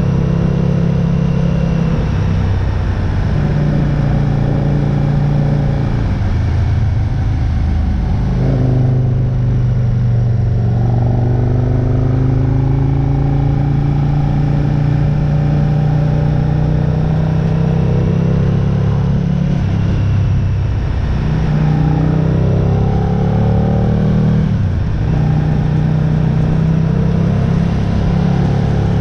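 Aprilia RSV-R sport bike engine under way, its pitch climbing steadily as it pulls and dropping sharply at gear changes about a third of the way in and twice more near the end, over a constant rush of wind.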